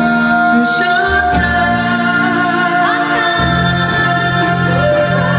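Live band playing a song with a sung lead vocal held on long notes over sustained chords; the bass shifts to a new note a few times.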